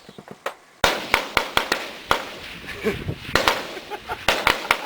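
Rifle gunfire from several shooters, a dozen or so sharp shots in quick, irregular succession, starting about a second in.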